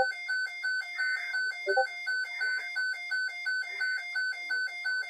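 A rapid electronic beeping loop, about five short high beeps a second, repeating evenly like a background music track.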